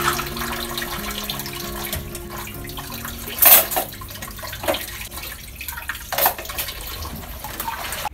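Plates being set into a wire dish rack: sharp clatters of plate against plate and rack wire, the loudest about three and a half seconds in and two lighter ones after it. A steady hiss runs under the first half.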